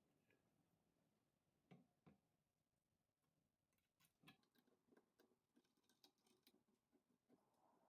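Near silence, with a few faint clicks and taps of parts being handled: two about two seconds in, one near the middle, then smaller ticks after it.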